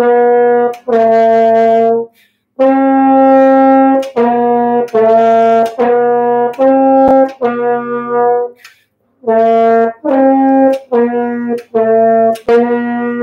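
French horn playing a simple melody of separate, sustained notes, about one a second, with two short pauses for breath.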